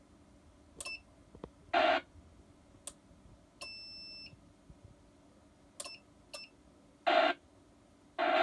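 Amateur radio satellite station equipment: a few short electronic beeps at irregular intervals and one longer beep held for under a second, with three short, loud bursts of noise from the receiver at about two seconds in, about seven seconds in and near the end.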